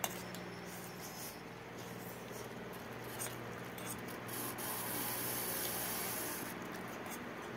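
Two people eating noodles: steel spoons scraping and clicking on steel plates, with slurping and chewing. A louder hissing slurp comes in the second half, over a low steady hum.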